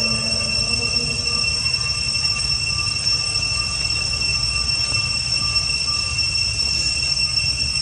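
Steady, high-pitched insect drone holding two unchanging pitches, with a low rumble underneath.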